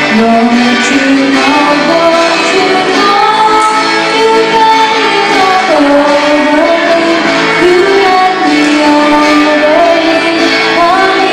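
A live song duet: a young woman singing into a microphone and a young man singing alongside her while strumming an acoustic guitar.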